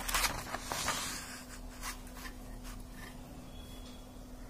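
Light rustles and soft taps of a pen against a paper worksheet as the page is handled, mostly in the first two seconds, then a faint steady hum.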